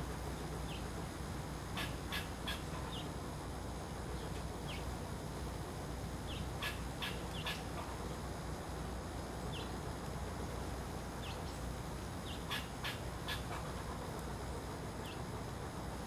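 Small songbirds giving brief, high, falling call notes scattered through, over a steady low background rumble. Three quick sharp taps come three times: about two seconds in, near the middle, and near the end.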